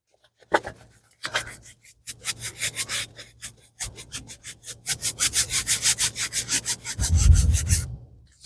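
Rapid, rhythmic scratching and rubbing strokes, about five a second, from hands working at the packaging of a diamond painting kit, with a low thud near the end.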